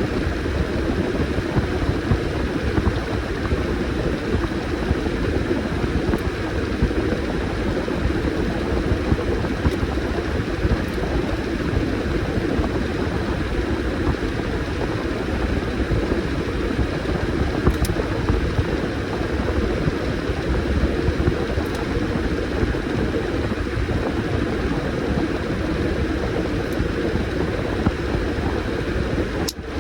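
Washing machine running with a load of towels, the drum turning with a steady mechanical churning hum. The sound drops out briefly just before the end.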